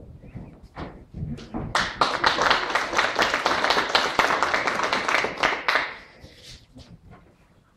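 Audience applauding: a few scattered claps, then full clapping for about four seconds that dies away near the end.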